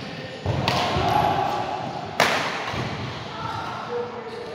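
Sharp knocks and thuds echoing in a large hall. The loudest come about half a second in and again just after two seconds, with voices in the background.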